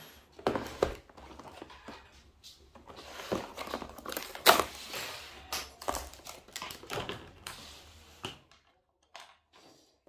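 Clear plastic clamshell sushi trays being handled and their lids pried open: a run of sharp plastic clicks, cracks and crinkles, the loudest about four and a half seconds in, thinning to a few faint clicks after about eight seconds.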